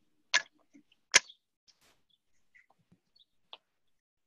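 Two sharp clicks about a second apart near the start, followed by a few faint scattered ticks and one small knock.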